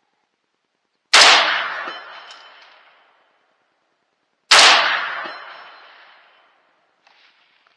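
Two rifle shots from a 6mm ARC AR-15, about three and a half seconds apart, each followed by a long echoing tail that fades over about two seconds.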